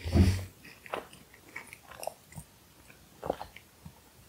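Close-miked chewing of a mouthful of shawarma, with short wet mouth smacks and small clicks at irregular moments. A short breathy mouth sound comes right at the start.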